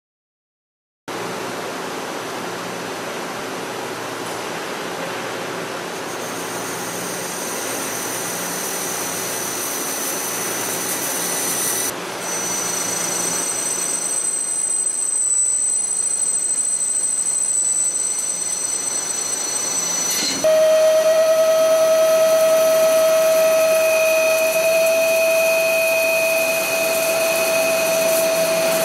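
Hwacheon Hi-TECH 230AL CNC turning center machining SM45C carbon steel, a steady cutting noise that changes abruptly with each new operation. Grooving comes first; then, about two-thirds of the way in, U-drilling with a 55 mm insert drill brings in a steady whine.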